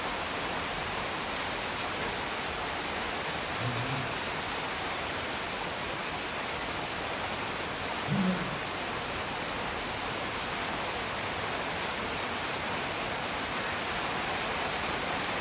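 Monsoon rain falling steadily, an even dense hiss of drops, with two faint brief low sounds about four and eight seconds in.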